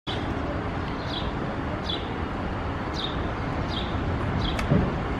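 Street ambience with a steady low traffic rumble, over which a bird repeats a short falling chirp about once a second. A click and a thump come near the end.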